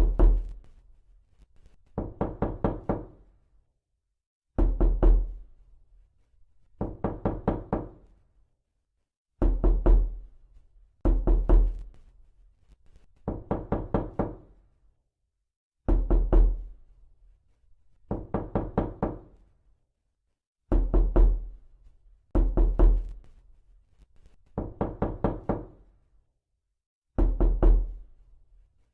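Knuckles knocking on a door in a binaural recording. The knocks come in quick groups of about four to six, and each group is followed by a second or so of silence. Some groups are heavier, with a deep thud.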